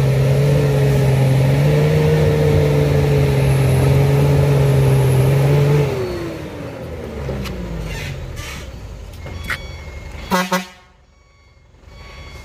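Hino truck's diesel engine labouring at high, steady revs as it climbs a steep dirt slope; about six seconds in the revs fall away in a long downward slide. Near the end come two short, loud blasts close together.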